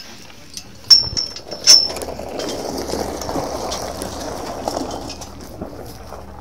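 Two sharp metallic clinks about one and two seconds in, then gravel crunching underfoot as someone walks across a gravel yard.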